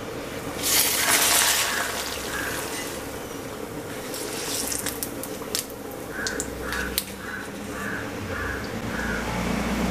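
Pappadam frying in hot coconut oil: a loud sizzle as it drops into the oil about half a second in, then a steady sizzle with scattered crackles while it puffs up and is lifted out.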